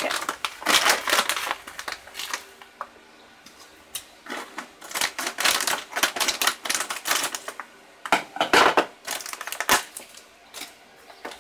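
Plastic bag of shredded coconut crinkling and rustling in irregular bursts as it is handled and pulled open.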